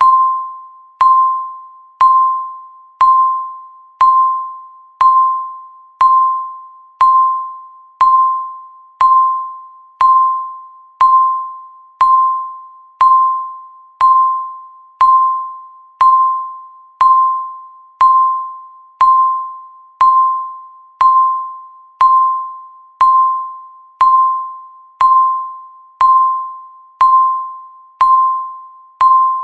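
Countdown timer beeping once every second: a short, high electronic beep that starts sharply and fades before the next, at the same pitch each time.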